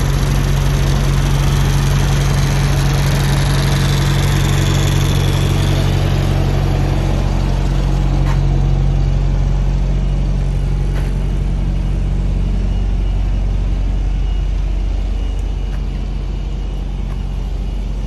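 A diesel engine idling steadily with a low, even hum, easing a little after about twelve seconds.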